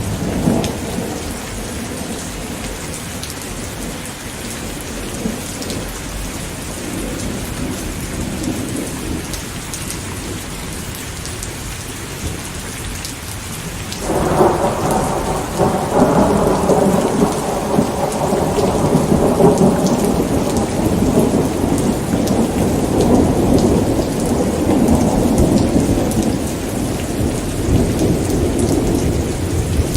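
Steady rain with thunder. A rumble dies away in the first second, then a new peal of thunder breaks in suddenly about halfway through and keeps rolling and rumbling over the rain.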